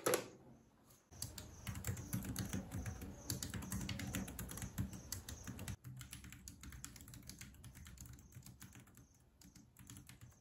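A sharp knock at the start, then typing on a compact white Bluetooth keyboard with round keys, a quick run of keystrokes with a low thud under them, not too loud. About six seconds in it changes to lighter, sparser typing on a Lenovo laptop keyboard.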